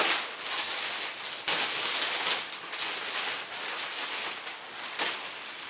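Thin clear plastic mattress wrapping crinkling and rustling as it is pulled and handled, with sharper crackles about one and a half seconds in and again near the end.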